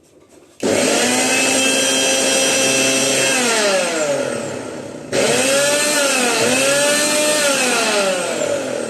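Sansui Colossus 1000-watt mixer grinder running with a jar locked on. The motor whine starts abruptly about half a second in and winds down after about three seconds. It is switched on again around five seconds in and runs until it winds down near the end.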